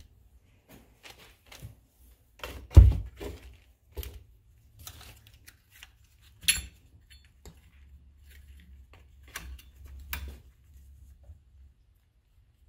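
Metal parts of an Electric Hand cross-shift cylinder being handled and pressed together against its spring: scattered clicks and knocks, the loudest a thump about three seconds in.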